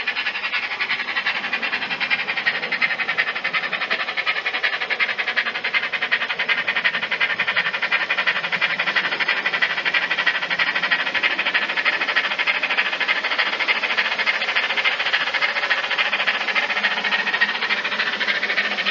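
Recorded steam-locomotive chuffing from the DCC sound decoder of a Bachmann Double Fairlie model, played through its small onboard speaker: a rapid, even run of exhaust beats with steady hiss.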